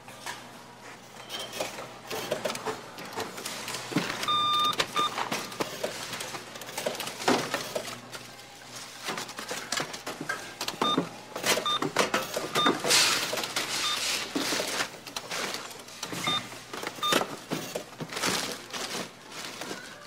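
Supermarket checkout ambience: an electronic checkout register beeps in short beeps at one fixed pitch, a couple about four to five seconds in and a run from about eleven to seventeen seconds, over steady clatter and rustle of goods and bags being handled.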